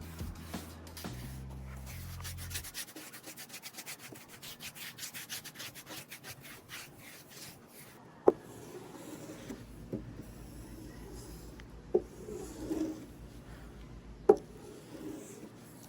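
A quick run of even rubbing strokes on a wooden surface, followed by four sharp knocks with short scuffing between them.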